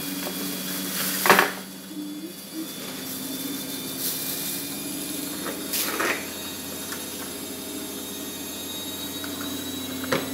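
Unboxing handling noise: a plastic wrapper rustling as it is pulled off a ring light, and a cardboard box being moved, with a sharp knock about a second and a half in and another near six seconds. A steady low hum runs underneath.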